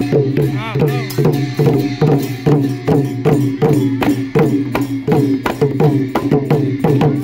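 Thai klong yao long drums beaten by hand in a fast, even rhythm, with cymbals clashing along on the beat.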